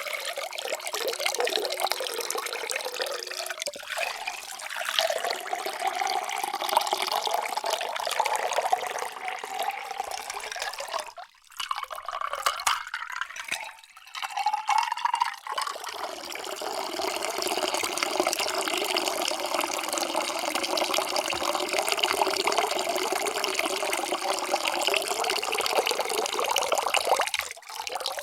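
Water pouring into a vessel in several separate pours. In the first long pour the pitch rises steadily as the vessel fills. After brief breaks a short pour rises again, then a long, steady pour follows that stops near the end.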